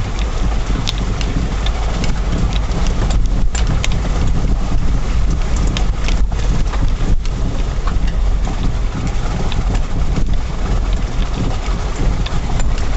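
A Mitsubishi Shogun's 3.2 turbodiesel driving slowly along a muddy, rutted bog track, heard from inside the cab: a steady heavy low rumble with scattered clicks and knocks.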